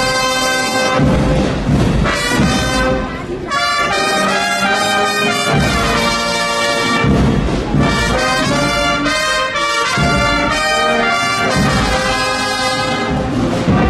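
Brass band playing a slow processional march: held chords of trumpets and trombones, with low drum beats underneath.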